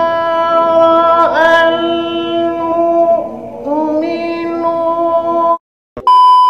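A qari's high male voice in melodic Quran recitation, holding long notes with a dip in pitch and then a step up. The voice stops about five and a half seconds in, and after a brief silence a loud, steady test-tone beep starts.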